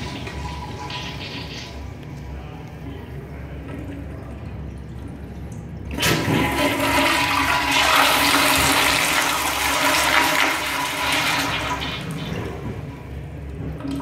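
Kohler dual-flush toilet: a flush dies away into quieter running water, then about six seconds in a second flush starts with a sudden rush of water that runs for several seconds before easing off.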